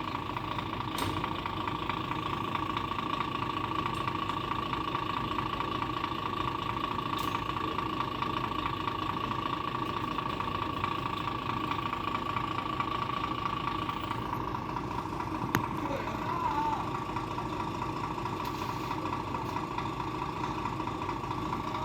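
Gravel truck's diesel engine idling steadily, with a constant high-pitched whine over the low engine hum.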